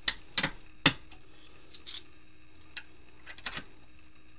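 3D-printed plastic controller-hanger arms being slid and pushed into their mounting blocks: a handful of sharp plastic clicks and clacks, irregularly spaced, most of them in the first two seconds and a softer pair about three and a half seconds in.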